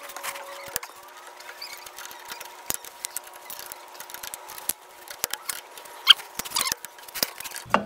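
Small metallic clicks, taps and scrapes of drum brake shoe hardware being handled and fitted onto the backing plate, with a sharper metal clink about six seconds in, over a faint steady hum.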